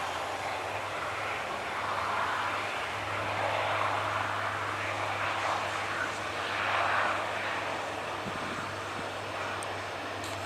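Boeing jet airliner's engines heard as a steady rushing noise that swells over the middle few seconds and then eases off as the aircraft passes.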